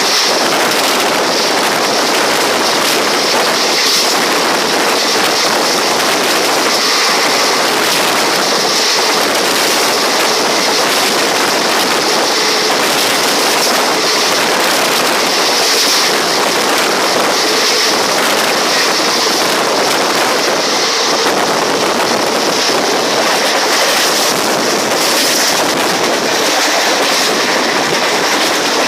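Passenger train running along the track, heard from on board: a steady rush of wheel and wind noise with light clicking.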